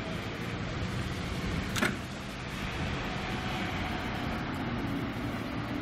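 Diesel multiple unit's engines running steadily as the railcar pulls slowly away, with a single sharp click about two seconds in.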